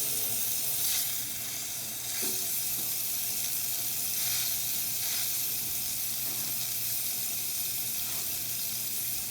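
Rancilio Silvia steam wand hissing steadily as it vents steam. The steam is slightly weak because the boiler is still heating up to steam pressure.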